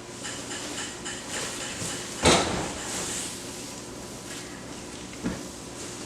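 Two thuds of square hay bales being dropped onto a stack: a loud one about two seconds in and a smaller one about five seconds in.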